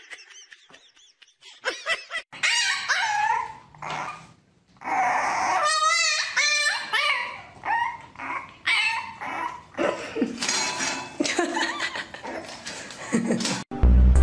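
A dog whining and yipping, with a quick run of short pitched cries about halfway through.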